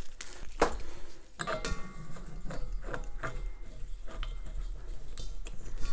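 Scattered light clicks and taps of a propane regulator and hose being handled and fitted onto a propane tank's valve.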